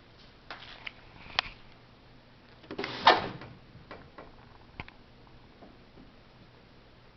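A few light clicks and knocks, then a louder clatter about three seconds in, followed by a few fainter clicks.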